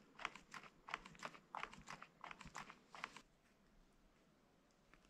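Hydraulic clutch lever on a KTM 690 SM being pumped by hand while the clutch is bled with fresh mineral oil: a quick run of light clicks and snaps, about three or four a second, that stops about three seconds in.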